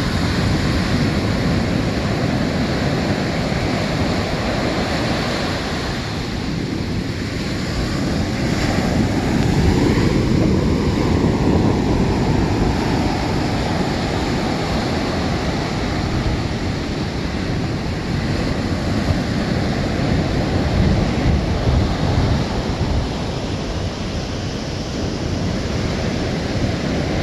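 Ocean surf washing onto a beach, with strong wind buffeting the microphone. A wave swells louder about ten seconds in.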